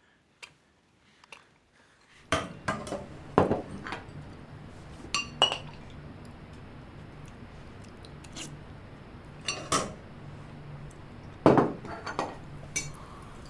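Cutlery and dishes clinking: about half a dozen separate knocks and short ringing clinks, spread out irregularly, over a steady low room hum that starts about two seconds in.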